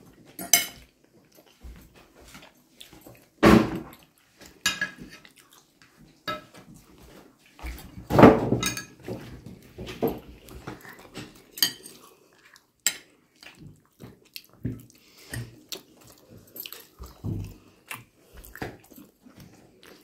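Plates and cutlery clinking and scraping as people eat at a table, with many scattered small clicks and two louder knocks about three and a half and eight seconds in.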